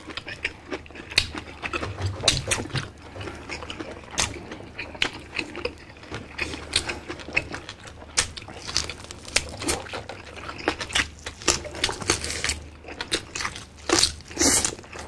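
Close-miked wet eating sounds: irregular lip smacks, chewing and slurping as boiled beef shank and its bone marrow are eaten by hand.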